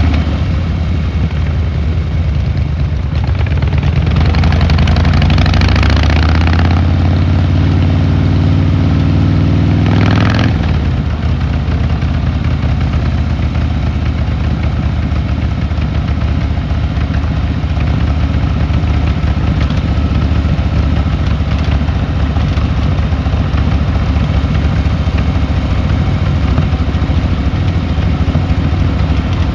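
Harley-Davidson Fat Boy Lo's V-twin engine and exhaust. It runs low at first, rises in pitch under throttle from about four seconds in, drops abruptly just past ten seconds as the throttle is rolled off or a gear is changed, then runs on steadily at low revs.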